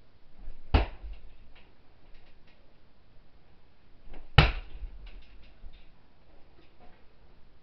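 Two sharp, heavy thuds about three and a half seconds apart, from a person shadowboxing on a wooden floor. Lighter taps and shuffles of footwork come in between.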